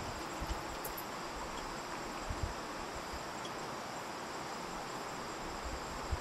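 Steady outdoor ambience: an even hiss with a faint, continuous high insect trill, likely crickets.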